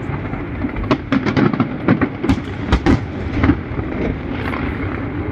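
Fireworks display: a rapid, irregular string of sharp bangs over a continuous low rumble, thickest in the middle and thinning out near the end.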